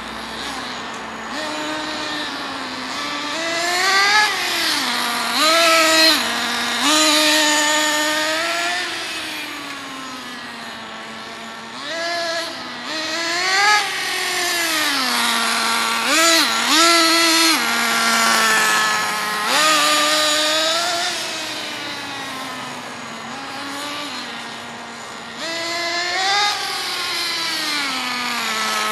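Motor of a 1:10 Kyosho Fazer electric RC touring car whining, its pitch rising and falling over and over as the car speeds up and slows down.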